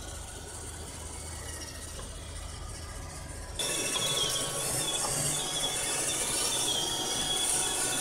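A low hum for the first three and a half seconds, then an iRobot Roomba Pet Series robot vacuum running, with a wavering high squeal over its motor and brush noise.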